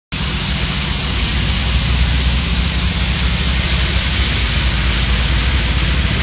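Norfolk Southern diesel-electric freight locomotives passing close by, their engines giving a steady low rumble under a loud, even hiss.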